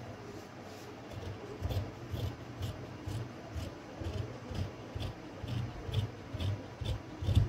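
Large tailor's shears cutting through fabric laid on a table: a steady run of snips, about two a second, starting about a second in, each stroke a crisp blade click with a dull knock underneath.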